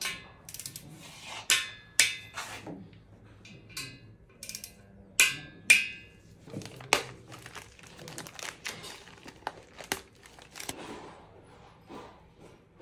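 Irregular sharp metallic clinks and knocks, about a dozen, some ringing briefly, as engine parts and tools are handled during assembly; the loudest pair come about halfway through.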